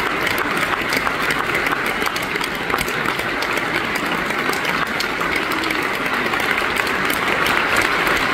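Sustained applause from a theatre audience: many hands clapping in a dense, even stream that neither builds nor fades.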